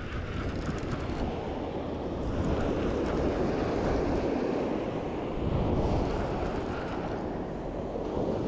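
Wind buffeting the camera's microphone over surf breaking on the beach: a steady, rushing rumble that swells and eases now and then.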